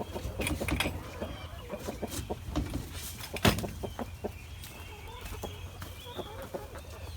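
Chickens clucking, mixed with scattered clicks and handling knocks, and one sharp knock about three and a half seconds in.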